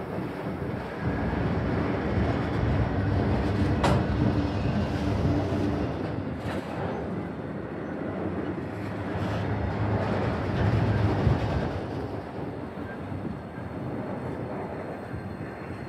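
Freight train of multilevel autorack cars rolling past, a steady rumble of wheels on rail with a sharp metallic click about four seconds in. The noise eases off near the end as the last cars go by.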